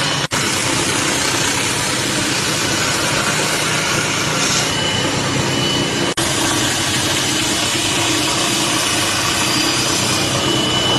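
Belt grinder running and grinding a steel blade: a loud, steady grinding noise of abrasive belt on metal, broken by two very short dropouts, one just after the start and one about six seconds in.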